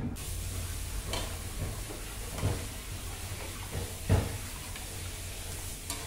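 Steel pot of water and rice heating on a gas burner, giving a steady hiss. Three short knocks fall about a second, two and a half and four seconds in, the last the loudest.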